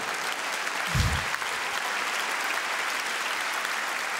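Theatre audience applauding steadily, with one low thump about a second in.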